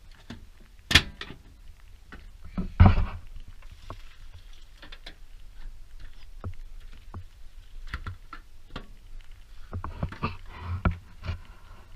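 Metal clanks, clicks and knocks of work-truck toolbox compartment doors, latches and gear being handled. There is a sharp bang about a second in, a heavier bang near three seconds in, and a cluster of knocks near the end.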